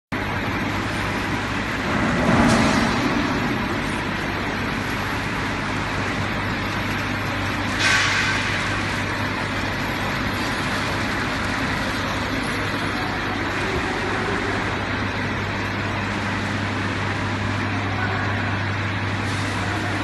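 Vertical ultrasonic vial washing machine running: a steady mechanical whir over a low hum, with two brief louder hissing surges, about two seconds in and again about eight seconds in.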